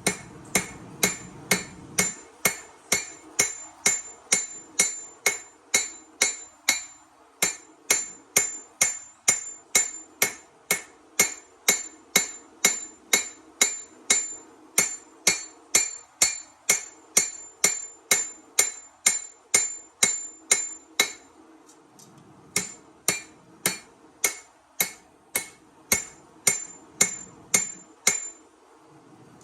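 Forging hammer striking a steel chef-knife blank on an anvil, in a steady run of about two blows a second, each blow ringing. There are brief pauses about 21 and 28 seconds in.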